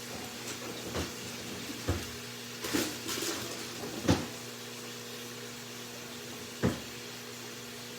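A handful of short knocks and clatters of objects being handled and set down, the loudest about four seconds in and another near seven seconds, over a steady low electrical hum.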